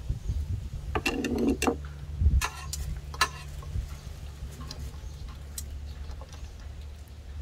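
Light clicks and clinks of metal tongs against a stainless steel bowl, loudest about one to three and a half seconds in, over a steady low hum.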